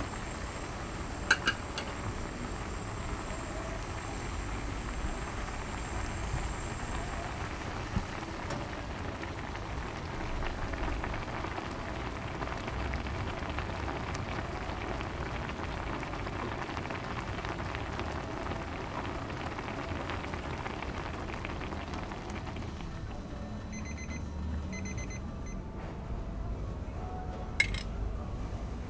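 Steady hiss of water boiling in a pot for instant ramyeon, with a few sharp clicks and a short run of electronic beeps near the end.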